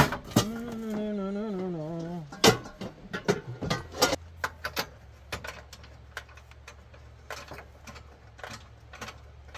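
A drawn-out hummed voice sound for about two seconds, then scattered light clicks and knocks of camp cooking gear being handled, with a low steady hum coming in partway through.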